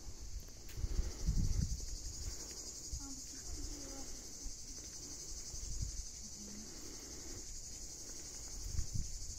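Steady, high-pitched insect chorus, a continuous shrill buzz, with low buffeting on the microphone about a second in.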